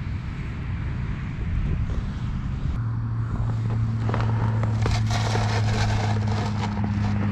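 A steady low hum, like a motor running, comes in about three seconds in over a rumbling background. From about four seconds, dense crackling and rustling of close handling joins it.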